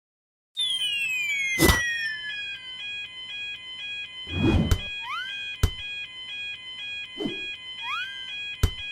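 Animated railroad crossing bell ringing in a steady alternating clang, starting about half a second in. Cartoon sound effects play over it: a long falling glide, several sharp knocks, and quick upward swoops in the second half.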